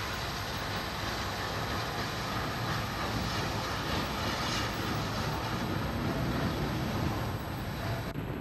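Steam locomotive hissing steadily as steam escapes, with no clear beat or rhythm.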